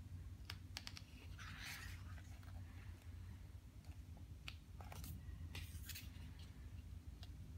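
A page of a large hardcover photo book being turned by hand: a few light taps, then a soft paper swish as the page flips over about a second and a half in, followed by light brushing and taps as a hand smooths the page flat, over a low steady hum.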